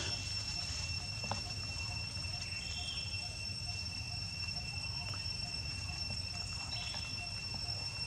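Steady high-pitched insect drone, with a few short chirps about three and seven seconds in and a low rumble underneath.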